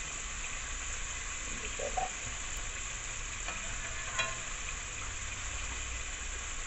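Chicken wings deep-frying in hot oil, a steady sizzle and crackle, with a small click about four seconds in.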